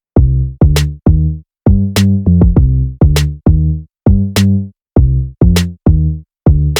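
Background music: a drum-machine beat with short, punchy bass notes and a sharp snare or clap stroke about every 1.2 seconds.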